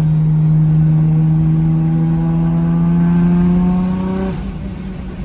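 Toyota Supra Mk4's inline-six engine heard from inside the cabin, pulling under acceleration with its note rising slowly and a high whine climbing with it. About four seconds in, the engine note drops abruptly and gets quieter.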